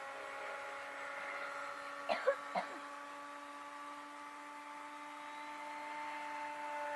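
Radio-controlled model airplane's motor and propeller whining steadily at low throttle on a slow, flaps-down approach, the pitch rising a little near the end. About two seconds in there are three brief high squeaks.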